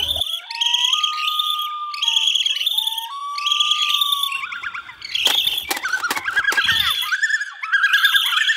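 Bats squeaking in rapid, repeated high chirps, with an eerie steady whistling tone underneath that rises a little and stops about four seconds in. After that, lower squeals and a few sharp clicks join the squeaking.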